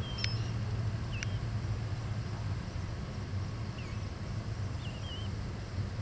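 Small birds give short, high, wavering chirps about four or five times, over a steady low hum.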